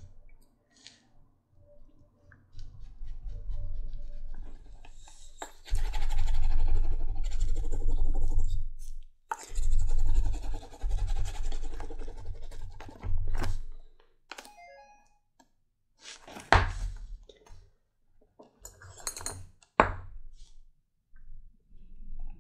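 Hands briskly rubbing and buffing a tooled leather knife sheath, in two spells of a few seconds each. A few sharp single knocks follow.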